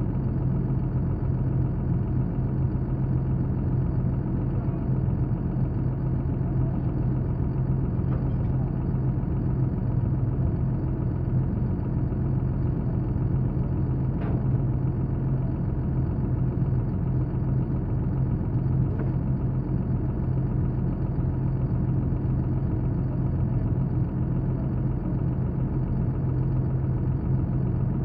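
An engine idling steadily at a constant speed, with a few faint taps now and then.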